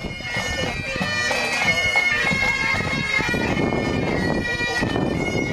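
Bagpipes playing a tune, held high notes moving from one pitch to the next.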